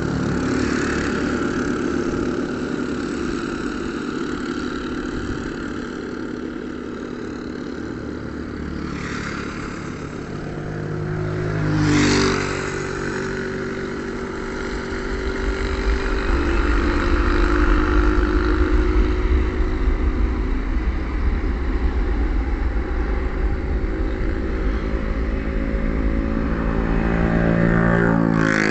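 Airbus A321-211 jet engines (CFM56 turbofans) during a takeoff roll: a steady engine tone, a brief loud swell about twelve seconds in, then a deep rumble that grows louder through the second half as the engines run at takeoff power.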